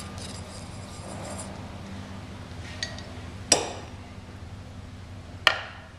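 Two sharp metal clinks about two seconds apart, each ringing briefly, with a lighter tick just before the first, as the stainless steel pump bearing housing and tools are handled on a steel workbench. A low steady hum runs underneath.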